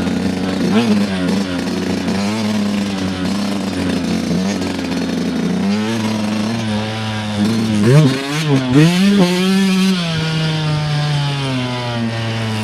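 Two-stroke dirt bike engine being ridden, its revs rising and falling with the throttle, with a run of quick rev swings from about six to ten seconds in.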